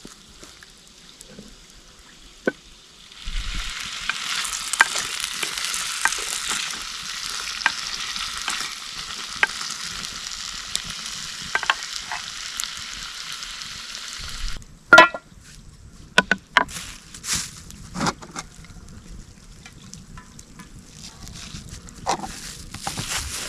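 Food sizzling with crackles over the heat of the campfire, starting suddenly a few seconds in and cutting off sharply after about eleven seconds, followed by a few loud knocks and clatters.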